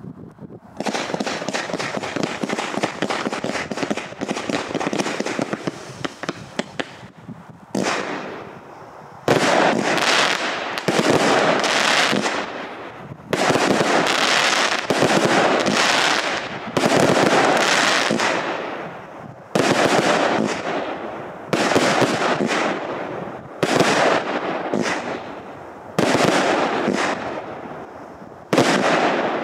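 A 100-shot, 20 mm (0.8 inch) F3 firework cake, the Triplex Fire Art 100S, firing. First comes a dense run of rapid crackling shots. Then a series of loud volleys follows about every second and a half, each hitting suddenly and fading out before the next.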